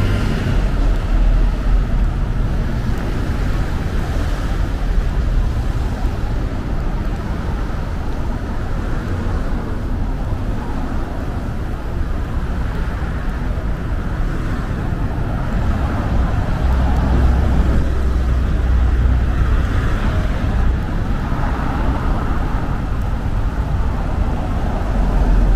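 Road traffic: cars and a bus moving along the road beside the pavement, a steady rumble of engines and tyres. A heavier low rumble swells for a couple of seconds a little past the middle.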